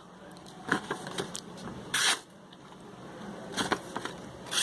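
Short scraping strokes, about four, the loudest about two seconds in: the small blade of a Victorinox Camper Swiss Army knife being tried out on a cut.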